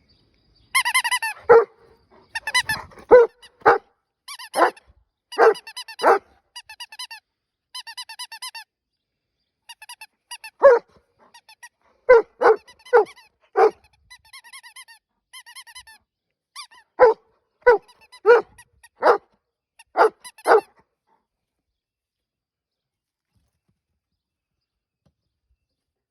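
A squeaky dog toy squeezed over and over, each squeak answered by short, sharp barks from the dog. The squeaks and barks stop about 21 seconds in.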